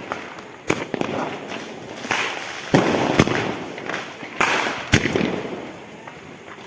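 Firecrackers going off: a run of sharp bangs at uneven intervals, with crackling between them.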